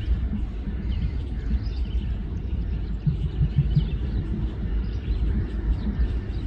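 Birds chirping over a steady low rumble.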